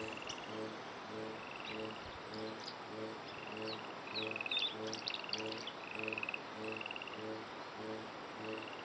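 Outdoor animal calls: a low pulsing call repeating about twice a second and a short high buzzy trill about once a second, typical of frogs and insects. Partway through, a cluster of quick high bird chirps comes in over them.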